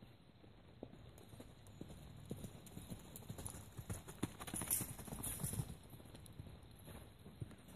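Hoofbeats of a Welsh Cob mare moving at speed around a dirt round pen. They grow louder as she passes close by about four to five seconds in, then fade as she goes round the far side.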